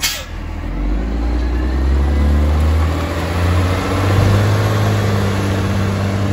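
Side-loader garbage truck's diesel engine revving up as the truck pulls away from a stop, its pitch rising as it gathers speed, after a short hiss of air at the very start.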